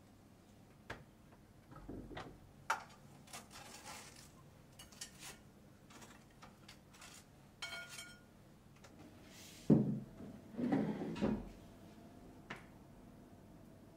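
Handling sounds from a plastic sandwich maker and ceramic dishware: scattered light clicks and knocks, a short ringing clink near the middle, then plates and a bowl set down on a wooden table, with the loudest thump about ten seconds in followed by a cluster of knocks.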